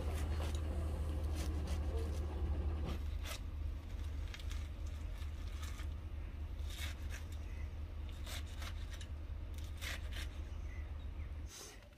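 Mustard greens being cut by hand with a small knife: irregular crisp slicing and snapping of stalks and leaves. A steady low hum runs underneath and stops just before the end.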